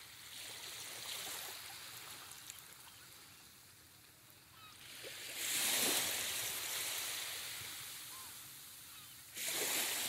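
Surf breaking on a sandy beach. A wave surges up about five seconds in and another near the end, each washing in and slowly fading, with a few faint bird calls.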